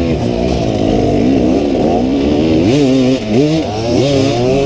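Dirt bike engine under way, its pitch rising and falling as the throttle is opened and closed, with a short drop in revs about three seconds in.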